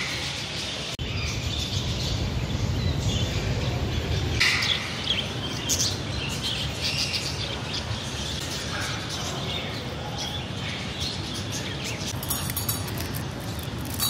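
Captive parrots chirping and calling: many short, high calls, scattered and overlapping, a couple of louder ones about four and six seconds in, over a steady low background rumble.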